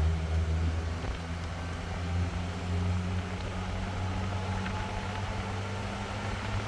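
Steady low hum of a running motor or engine, unchanging throughout.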